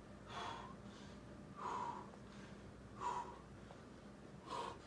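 A boulderer's hard, forceful exhalations of effort, four short breaths about a second and a half apart, one with each move while hanging under a rock roof.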